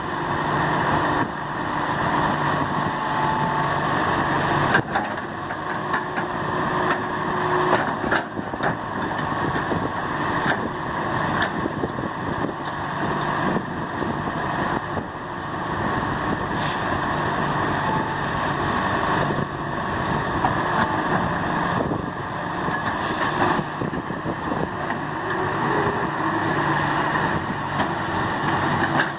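John Deere 595D excavator's diesel engine running steadily while the machine digs, with a few sharp knocks and clanks scattered through.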